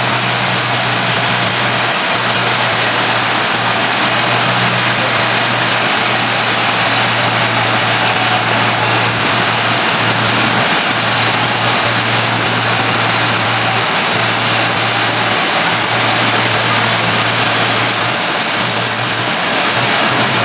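Sawmill machinery running steadily, a constant low hum under a dense, loud hiss.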